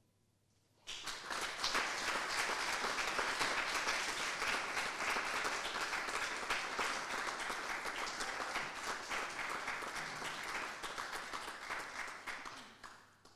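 Small audience applauding, starting about a second in after a brief hush and fading out near the end.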